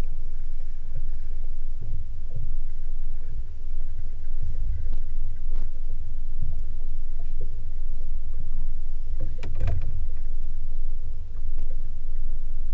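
Low, uneven rumble of a small trolling fishing boat, muffled as through a GoPro's waterproof housing, with a few knocks, the loudest a little past halfway through.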